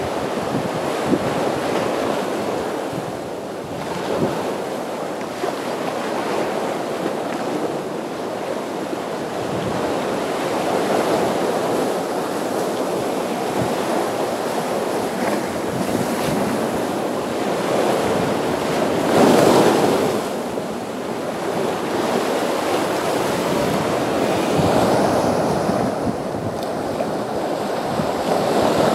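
Atlantic surf breaking against granite boulders and washing back, a continuous rush that swells and ebbs with each wave; the loudest wave crashes about two-thirds of the way through.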